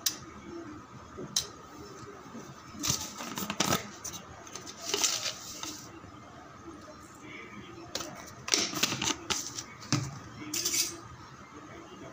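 Scattered light clicks and taps with a few short rustling scrapes, from handling ingredients around a stainless steel bowl as salt is sprinkled over raw prawns. A faint steady hum runs underneath.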